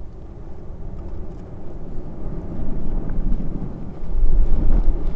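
Ambrym volcano's lava lake churning and bursting: a deep, loud rumble that swells from about two seconds in and is loudest near the end.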